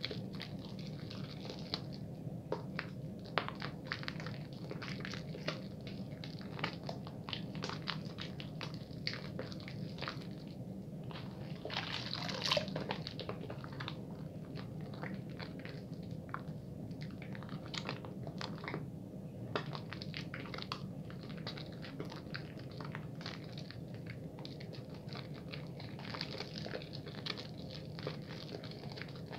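Hands lathering a wet bar of soap at a fast-ish pace: quick, irregular wet squishing and crackling clicks, with a steady low hum underneath.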